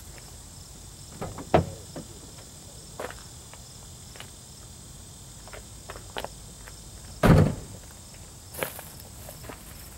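A steady high drone of insects, with scattered thumps and rustles over it; the loudest thump comes about seven seconds in, with smaller ones about a second and a half in and near the end.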